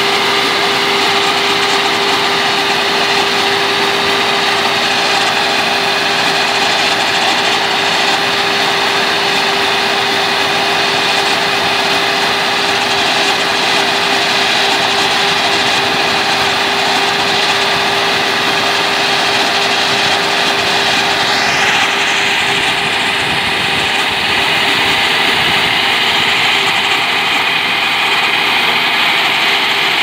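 Zoomlion 4LZ-4.0B combine harvester running steadily while its unloading auger discharges threshed paddy through the spout. A short rising whine about two-thirds of the way through.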